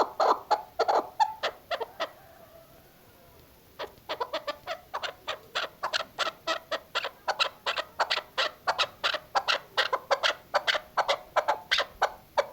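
Female chukar partridge calling in a fast series of short, sharp notes, about four to five a second. The series breaks off about two seconds in and starts again shortly before the four-second mark.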